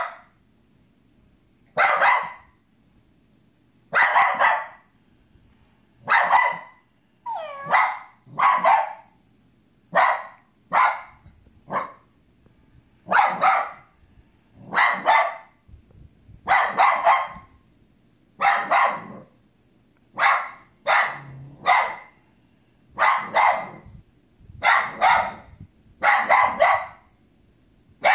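A small dog barking over and over at a mechanical toy cat, about twenty barks in steady succession roughly one to two seconds apart, some coming in quick pairs.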